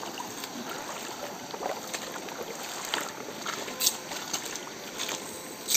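Steady water noise around a small boat, with a few short sharp clicks in the second half.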